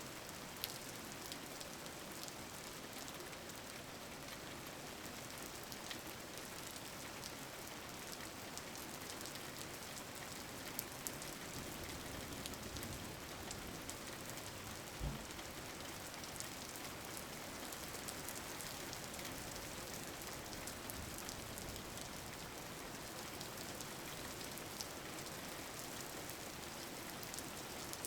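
Steady rain falling, an even hiss with scattered individual drops pattering.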